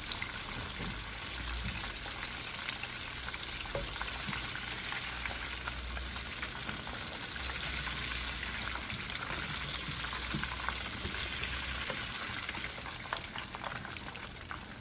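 Flour-coated chicken fingers frying in hot oil: a steady sizzle with many small crackles.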